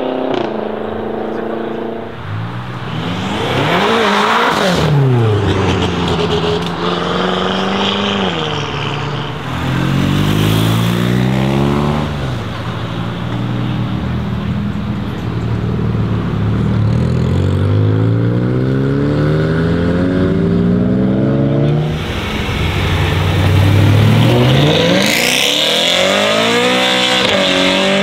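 Modified BMW performance cars accelerating hard past the roadside one after another, their engines revving up and dropping back through gear changes.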